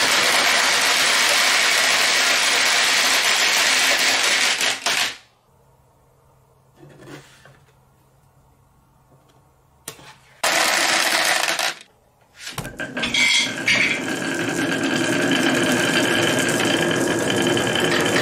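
Dozens of glass marbles rolling and clattering down wavy grooved wooden tracks and tumbling into a toy truck's bin, a dense rattle of many small clicks. It comes in bursts: loud for the first five seconds, quiet, a short burst around ten seconds, then a steady rattle from about thirteen seconds on.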